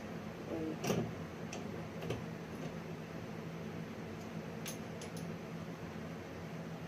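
A few light clicks and taps from bike parts being handled during assembly, the sharpest about a second in and a quick cluster about five seconds in, over a steady low hum.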